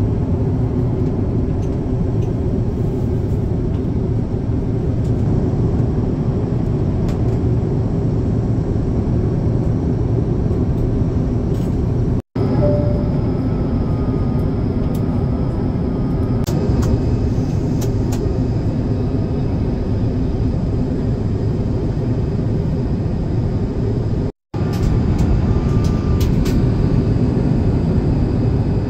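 Steady in-flight cabin roar of an Airbus A350-900, heard from a window seat beside its Rolls-Royce Trent XWB engine. The sound drops out for an instant twice, about 12 and 24 seconds in.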